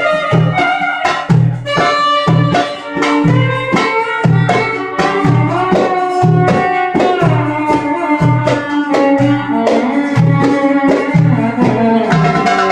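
Live Middle Eastern dance music. A goblet drum (darbuka) keeps a steady rhythm of deep strokes, and a string instrument plays a gliding melody over it.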